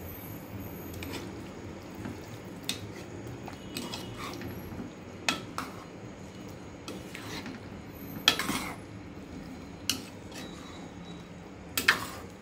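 A spoon stirring a thick eggplant, potato and tomato curry in an aluminium pressure cooker, clinking against the side of the pot every second or so. The loudest clinks come a little past two-thirds of the way through and just before the end.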